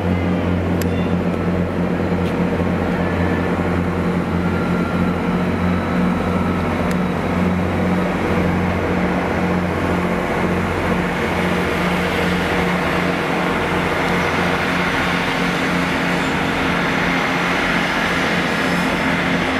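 Class 47 diesel locomotive's Sulzer twelve-cylinder engine running at a steady low hum as it hauls a train of coaches slowly round the curves. Wheel and rail noise grows louder from about halfway in as it comes nearer.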